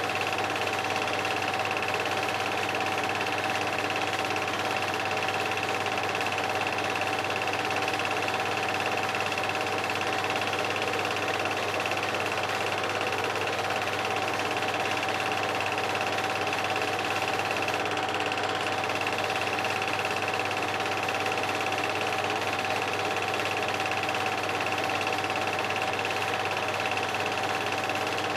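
Movie projector running: a steady mechanical whirr and rattle with a constant whine, unchanged through the whole stretch.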